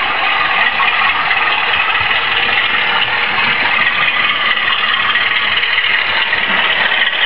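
Model diesel locomotive running along the layout's track close past the microphone, a steady, even running noise.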